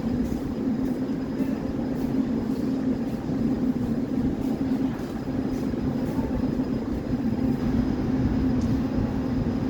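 Baltiets metro train running, heard from inside a car: a steady rumble with a constant low hum.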